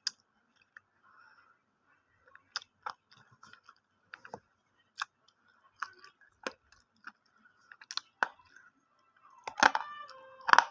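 Someone chewing crunchy food close to the microphone: irregular sharp crunches, sparse at first, then louder and closer together near the end.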